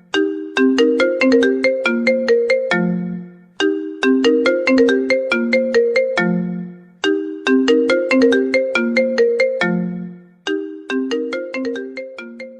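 Mobile phone ringtone melody: a quick tune of short struck notes, its phrase repeating about every three and a half seconds, four times over.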